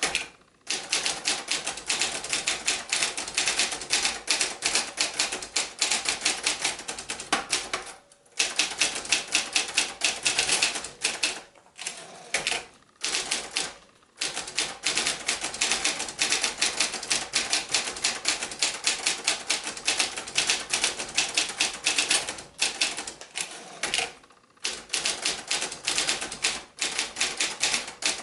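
A 1977 Montgomery Ward Escort 350, a Brother-built ultraportable manual typewriter, being typed on: quick runs of key strikes clacking against the platen, with a few short pauses.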